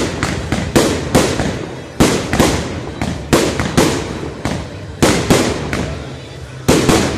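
Aerial fireworks bursting in quick succession: sharp bangs about two a second, each trailing off in a short echo, with a brief pause near the end.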